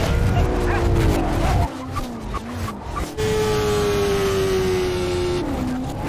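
Action-film chase soundtrack played in reverse: car and motorcycle engines with tyre squeal and a few sharp knocks, then, about three seconds in, a steady engine note that slowly falls in pitch for about two seconds.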